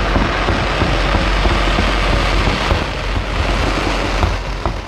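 Fireworks display in a dense barrage, many shells and fountains going off at once as a steady crackle over a low rumble.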